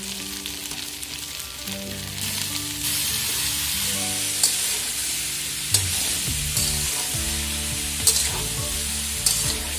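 Chunks of mixed vegetables (eggplant, drumstick and others for shukto) sizzling as they fry in hot oil in a steel kadai. The sizzle grows louder about two seconds in, and a metal spatula stirring them clinks sharply against the pan several times.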